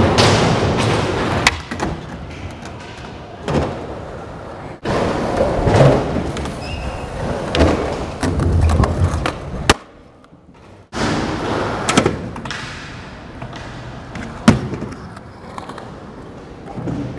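Skateboard wheels rolling over concrete, with sharp clacks and thuds of boards popping and landing, several of them loud. The sound cuts off abruptly a few times, with a brief near-silent gap about ten seconds in.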